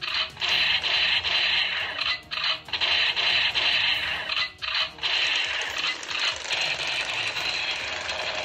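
Electronic sound effects from a battery-powered toy rifle's small speaker, a rapid repeating shooting sound. It pulses with short breaks at first, then about five seconds in turns into a faster, continuous rattle.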